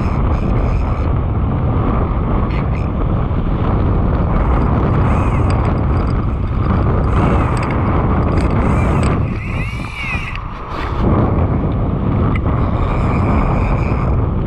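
Strong wind buffeting a camera microphone, a steady loud rumble with a short lull about two-thirds of the way through.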